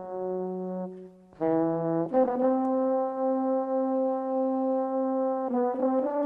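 Instrumental music: a single melodic instrument holding long notes, with a brief break about a second in and a few quick notes near the end.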